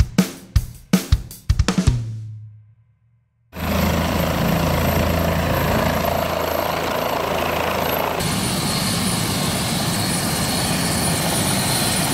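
Drum-beat music for about two seconds, fading out into a brief silence. Then a Bell 407 helicopter running on the ground: the steady noise of its Rolls-Royce 250-C47B turboshaft engine and rotor, with a thin high whine on top.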